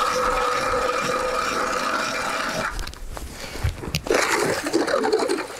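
Ice auger drilling a hole through first ice with a steady whine that stops about two and a half seconds in. It is followed by scraping and crunching of ice for a second or so.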